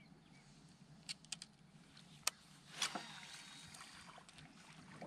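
Light clicks and knocks of fishing gear handled in a boat: a few quick clicks about a second in, a sharp knock a little after two seconds, and a louder clatter with a brief ringing near three seconds, over a low steady hum.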